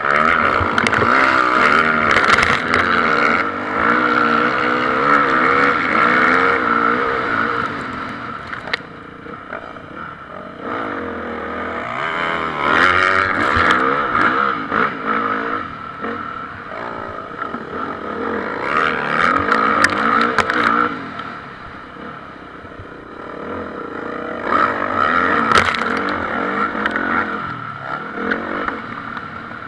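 Motocross bikes racing on a dirt track. Their engines rev hard and drop off through the gears, swelling loud in several surges a few seconds apart as bikes come past, then fading between.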